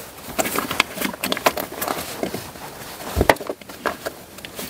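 Irregular plastic clicks and knocks as a red plastic battery terminal cover is handled and pressed onto a car battery's terminal by a gloved hand, with one louder knock about three seconds in.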